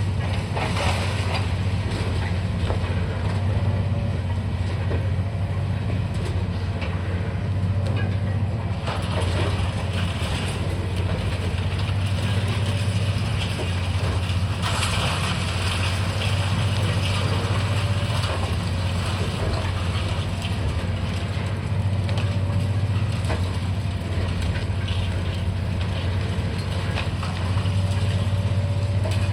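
Demolition machine's diesel engine running steadily, with irregular crunching and rattling as building material is broken, heaviest about nine seconds in and again about fifteen seconds in.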